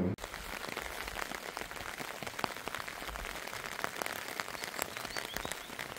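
Rain falling on a tent: a steady hiss of rain with many separate drops striking the fabric.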